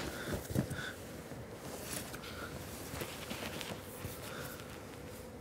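Clothes and items being rummaged through in a duffel bag: faint rustling and handling noise, with a sharp click at the start and a couple of soft knocks about half a second in.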